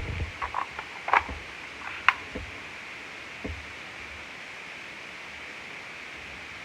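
A handful of sharp clicks in the first two seconds and two lighter knocks just after, from reloading a toy pistol, then only a steady hiss.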